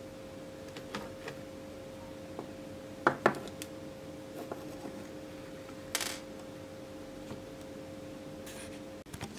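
A small homemade circuit board handled on a wooden tabletop: two sharp knocks about three seconds in, a brief scrape around six seconds and a few lighter clicks, over a steady faint hum that stops just before the end.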